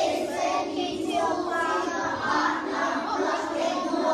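A class of young children's voices chanting a poem together in unison, without a pause.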